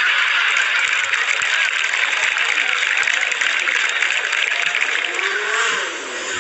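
Large crowd cheering and applauding, with many voices shouting together.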